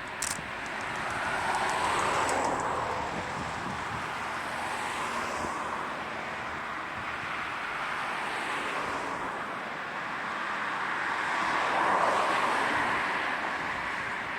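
Freight train of Koki container wagons hauled by an EH500 electric locomotive rolling past, a steady rumble and hiss of wheels on rail that swells twice and eases between.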